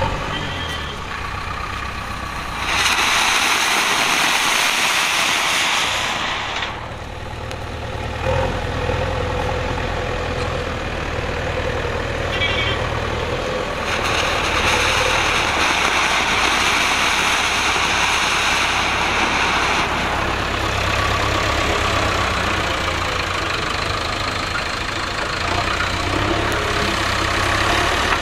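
Small cone firework fountains being test-fired one after another, each spraying sparks with a loud, steady hiss lasting several seconds. There are hissing stretches near the start and in the middle, with hiss continuing to the end. A low steady hum runs underneath.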